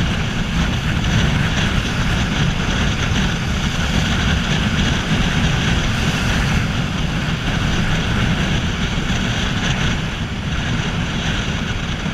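Steady wind rush over the camera microphone from a Yamaha Fazer 250 motorcycle riding at highway speed, with the bike and surrounding traffic running underneath.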